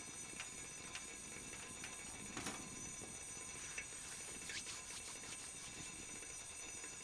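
Faint crackling of a wood fire burning in a small Pomoly camp wood stove: a few scattered ticks over a steady soft hiss, with a brief rustle about two and a half seconds in.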